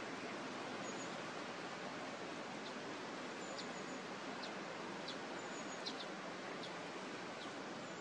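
Small songbirds calling: a scatter of short, very high, thin calls, about one a second from a few seconds in, over a steady outdoor hiss.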